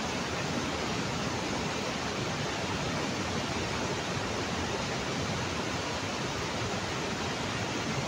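Steady rushing of a swollen, muddy mountain river in flash flood, an even, unbroken wash of water noise.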